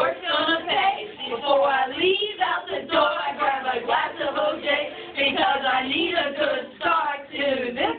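A small group of women singing together without accompaniment.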